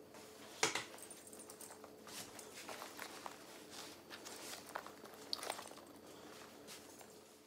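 Handling noise as a fishing net's coiled lanyard and clip are fastened to a fishing vest: scattered clicks and rustles, the sharpest click just under a second in, over a faint steady hum.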